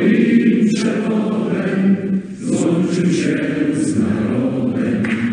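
A large group of voices singing together in unison, holding long notes, with a short break about two seconds in.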